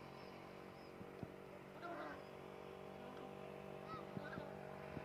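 Indian peafowl giving short, low honking cough calls, a few times, the clearest about two seconds in, over a steady low hum.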